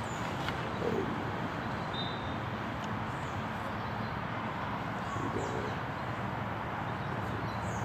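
Steady outdoor city background noise, with a few faint, short, high bird chirps and two brief low calls, one about a second in and one about five seconds in.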